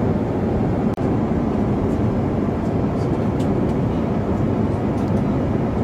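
Steady cabin noise of an Airbus A350 in flight, an even rush strongest in the low range. It cuts out for an instant about a second in.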